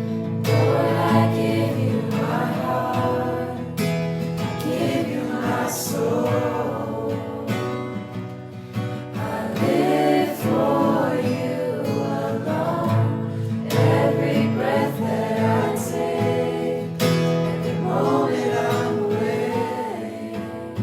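Worship music: several voices singing together over acoustic guitar strumming.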